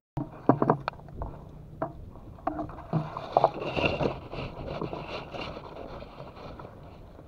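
Handling noise of a scoped PCP air rifle being swung onto a target: a series of sharp knocks in the first few seconds, then rustling and scraping around the middle that fades away.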